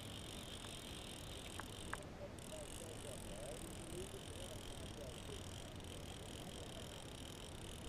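Spinning reel being cranked steadily to bring in a small trout, a faint continuous whir with a couple of light clicks a little under two seconds in.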